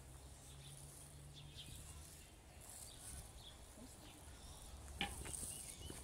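Faint wildlife ambience: small birds giving short repeated chirps over a steady high insect hiss and a low rumble, with one sharp click about five seconds in.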